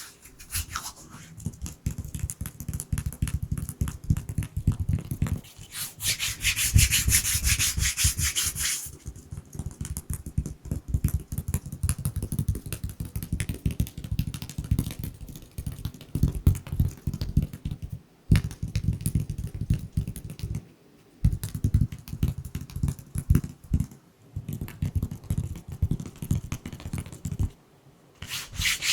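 Dry bare hands rubbing and moving quickly close to a microphone in fast, repeated strokes. A bright stretch of palm-on-palm rubbing comes a few seconds in; otherwise there are quick, soft, low brushing pulses in runs broken by brief pauses.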